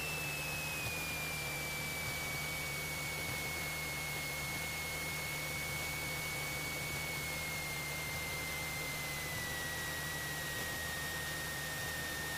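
Cessna 172SP's four-cylinder Lycoming engine and propeller droning inside the cabin as heard over the intercom, a steady noise with a whine that slowly falls in pitch as power comes back on final approach.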